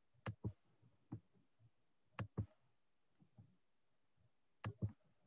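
Faint, sharp clicks in pairs: three pairs about two seconds apart, with a few softer clicks between.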